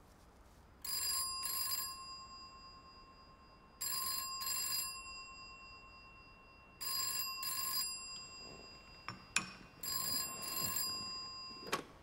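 Old-fashioned desk telephone's bell ringing in double rings, four pairs about three seconds apart. A few sharp clicks follow the last ring, the loudest near the end as the receiver is lifted.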